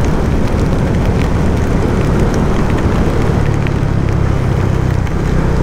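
Motorcycle riding at road speed: a steady engine drone under heavy wind and road rumble on the rider's camera mic, with scattered small ticks throughout.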